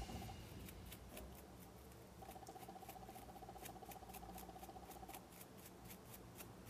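Faint rapid scratching clicks of a small plastic pick scraping plaster off a dug-out crystal. A faint buzzing tone runs underneath from about two to five seconds in.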